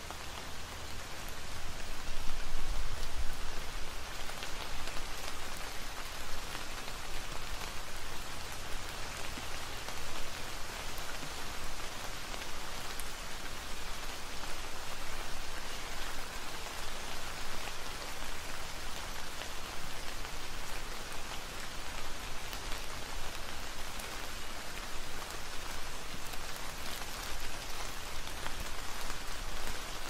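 Steady rain falling on grapevine leaves, with many individual drops striking close by as fine ticks over an even hiss.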